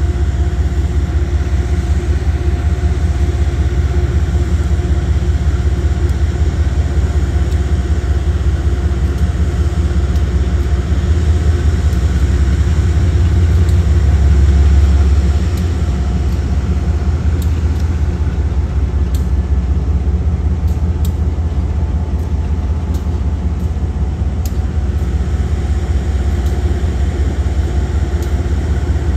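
Diesel locomotive engines running with a steady low rumble and hum: an Amtrak GE Genesis locomotive, with a Vermont Railway diesel locomotive rolling slowly past in front of it. The rumble swells about midway as the Vermont Railway engine passes, then settles back. Scattered light clicks follow in the second half.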